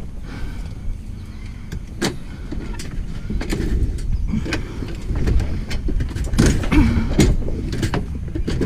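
Irregular knocks, clunks and scrapes of a bulky piece of scrap being shoved and jostled into a tight space in a vehicle, busier and louder in the second half, over a low rumble.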